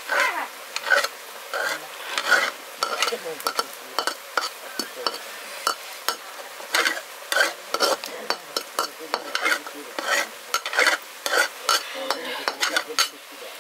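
A spoon stirring and scraping food in a cooking pan over the fire, in irregular strokes about one or two a second, over a steady sizzle.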